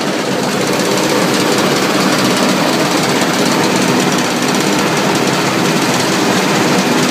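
Small animal-feed pellet line running: a loud, steady machinery noise with a constant set of low hums, from the pellet mill and the belt conveyor carrying fresh feed pellets.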